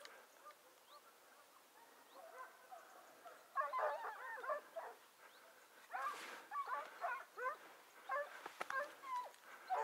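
Distant pack of hare hounds baying on the hare's trail, faint clusters of yelps that come in bursts about three and a half seconds in, around six seconds in, and again near the end.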